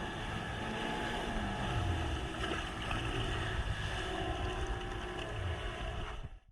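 Yamaha GP1800 jet ski running on the water, its engine mixed with water and wind noise. The sound cuts off suddenly near the end.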